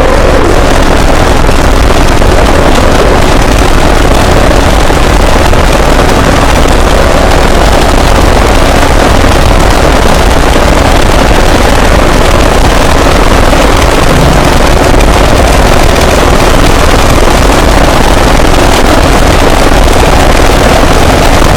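Fan-made Emergency Alert System alarm pushed to extreme loudness: a dense, heavily clipped and distorted wall of noise at full volume, steady, with no clear alert tone or voice standing out.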